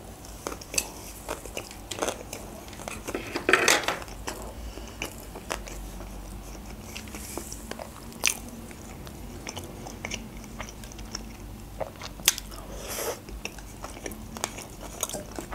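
Close-miked eating sounds: a sushi roll being chewed, with wet mouth clicks and a few louder clicks and smacks. Partway through, a plastic spoon scoops vinegret beet salad from a glass bowl and that is chewed too.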